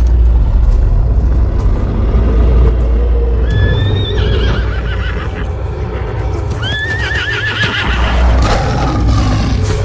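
Horse whinnying twice, each call rising and then quavering, over a deep, steady low rumble.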